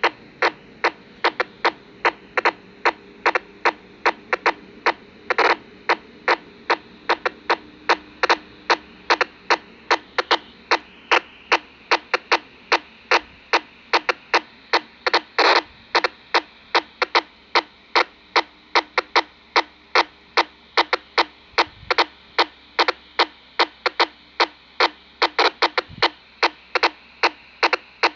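Unidentified signal received on a BaoFeng UV-5R handheld radio tuned to 422.870 MHz: a nearly even train of short, sharp clicks, about three a second, over a faint hiss, heard through the radio.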